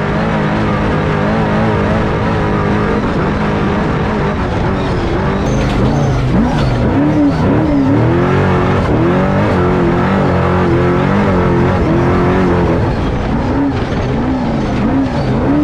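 Off-road truck engine running hard while driving in the dirt; from about six seconds in its pitch rises and falls over and over as the throttle is worked.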